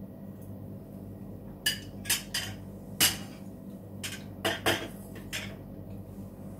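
Metal fork and ceramic plate clinking and knocking, about eight sharp clicks in short clusters between about one and a half and five and a half seconds in, the loudest near the middle.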